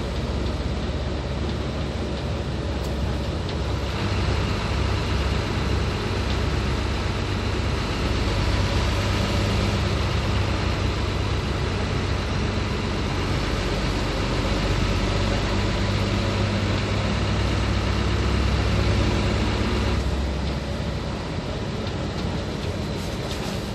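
Hino 500 truck's diesel engine running while driving. It pulls harder and louder from about four seconds in, then eases off again near the end.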